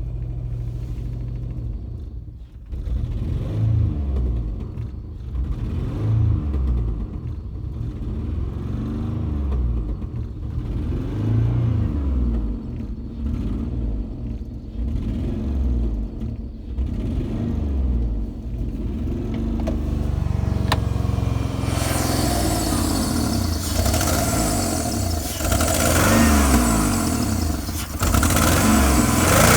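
Jeep Liberty engine running loud and rough, its speed surging up and down over and over. From about twenty seconds in, a loud hiss joins the engine sound. This is the sign of a fault the owner cannot place: no metal-on-metal sound, and he wonders about a misfire.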